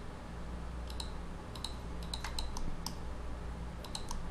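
Irregular clicks of a computer mouse and keyboard, about a dozen scattered through, over a low steady hum.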